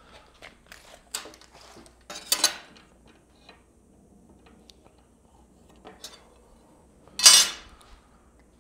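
Metal-on-metal handling noises from tools and a plate on a steel fixture table: scattered light clicks and clinks, with a short scraping burst about two seconds in and a louder one near the end.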